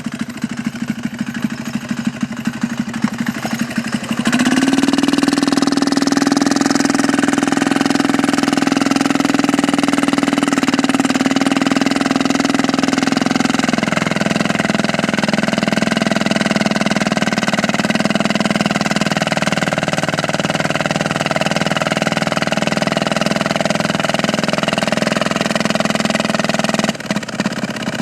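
Small 198 cc single-cylinder diesel engine idling with a rapid chugging, then revved hard about four seconds in and held at high speed, loud and steady. Its pitch dips slightly about halfway, and it drops back toward idle near the end.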